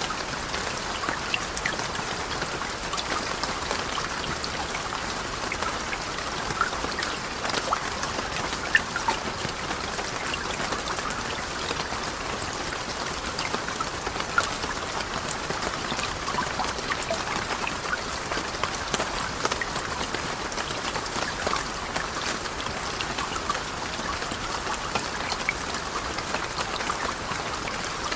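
Tinnitus-masking noise track: a steady, even hiss thick with fine, irregular ticks, like a dense patter, with a few sharper ticks standing out along the way.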